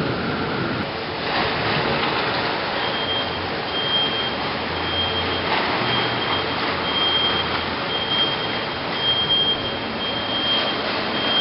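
Heavy thunderstorm rain and wind make a steady, loud hiss. From about three seconds in, a high electronic beep repeats a little more than once a second.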